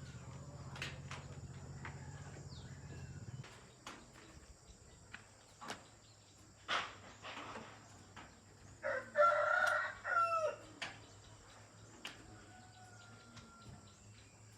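A rooster crowing once, about nine seconds in, over scattered light clicks and knocks.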